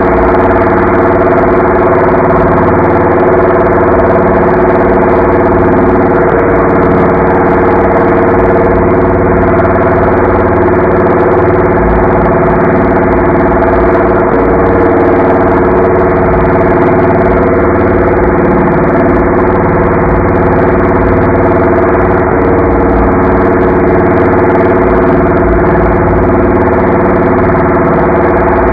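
Robot vocoder voice effect from the Voice Changer Plus app, slowed to a quarter speed: a loud, steady drone of several fixed-pitch tones over a hum, with no clear words.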